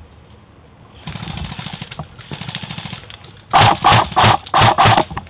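Airsoft electric M4A1 replica firing on full auto: a rapid stuttering volley for about two seconds from a second in, then five short, loud bursts in quick succession near the end.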